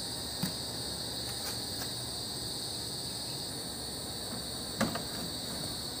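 Plastic washing-machine cover being handled and fitted back on: a light knock about half a second in and a sharper knock just before the end, over a steady high-pitched chirring of insects.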